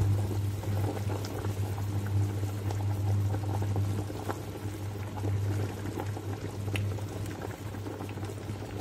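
Meat broth boiling in a pot, with a few soft plops as rye-and-barley flour dumplings (myky) are dropped into it one at a time. A steady low hum runs underneath.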